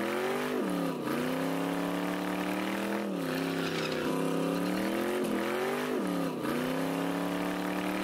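Drag car engine revving hard during a burnout. Its pitch dips sharply and climbs back about four times as the rear slicks spin.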